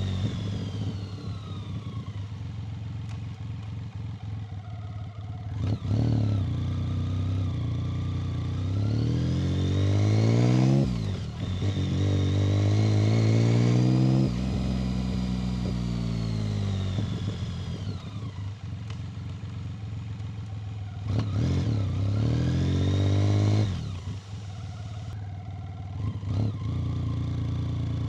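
1990 BMW K75's three-cylinder engine riding through city traffic. It pulls up through the revs several times, with a sudden drop at a gear change, then eases back to lower revs between the pulls.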